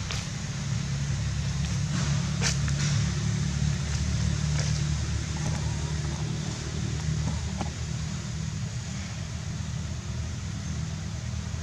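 Steady low engine hum, with a few faint clicks.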